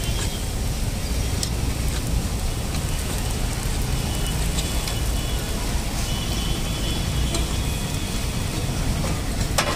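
A steady low rumble and hiss of a street-food stall, with a few light clicks and scrapes of a metal spatula spreading potato masala over dosas on a flat griddle.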